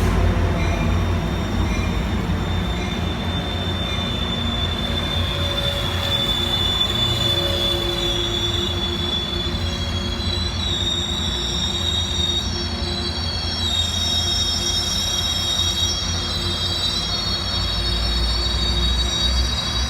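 Sounder commuter train rolling through the station, a steady rumble under high, shifting wheel squeal that builds from about a third of the way in.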